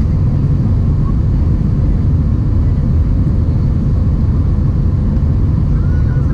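Steady low rumble inside an Airbus A320 cabin in flight: engine and airflow noise heard from a window seat over the wing.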